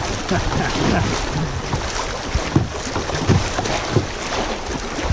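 Fast, choppy river water rushing and splashing around a kayak's bow as it runs a riffle, with irregular slaps of water against the hull and wind buffeting the microphone.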